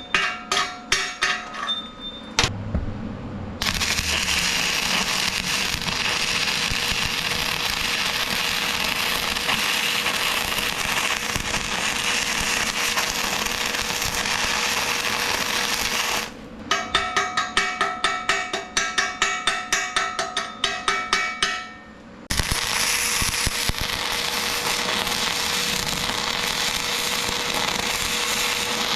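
Arc welding on steel: a steady crackling hiss of the arc that runs for about thirteen seconds, stops, and starts again a little past the twenty-second mark. Before and between the welds, quick hammer strikes ring on the steel, about four a second.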